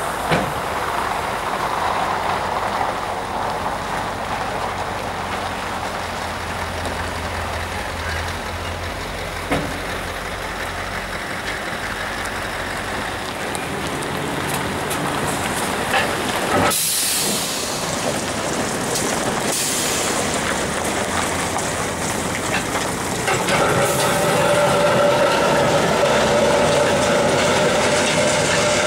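Scania R520 V8 diesel tractor unit pulling a heavy low-loader with an excavator aboard past at low speed, the engine drone steady and low. A little past halfway two sharp hisses of air about three seconds apart, and in the last few seconds a steady whine joins in.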